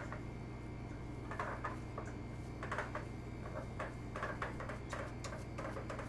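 Hands kneading and squeezing seasoned minced pork in a stainless steel bowl: soft, irregular squelches and small clicks, over a steady low hum.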